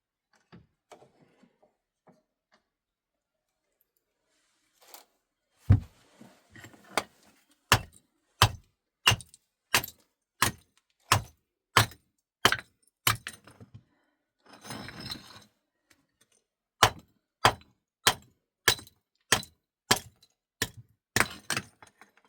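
A run of sharp knocks at a steady pace, about three every two seconds, broken near the middle by a second or so of rustling or scraping, then another run of knocks.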